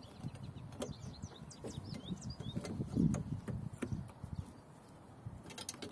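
Several short plastic clicks and rubbing as a headlight bulb is worked by hand into the socket at the back of a headlight housing, with small birds chirping in the background.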